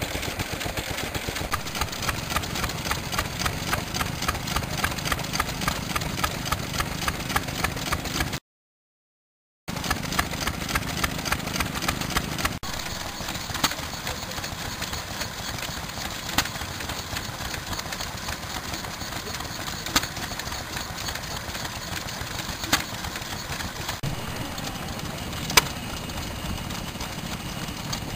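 An old hopper-cooled stationary engine running with a quick, even beat. Then a restored Amanco hit-and-miss stationary engine fires with single sharp pops about every three seconds, coasting quietly on its flywheels between firings.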